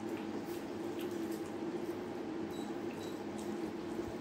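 Fingers mixing and squeezing rice with curry gravy on a steel plate: soft squishing with faint scattered clicks, over a steady low hum.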